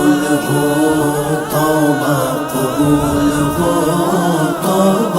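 Unaccompanied devotional nasheed vocals: long held and gliding sung notes over a steady layered vocal backing.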